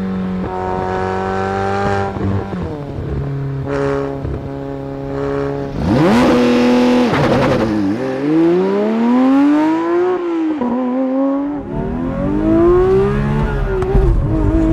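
High-performance car engine and exhaust running and revving. It holds a steady pitch at first, rises sharply about six seconds in, then the pitch climbs and falls back twice as it accelerates.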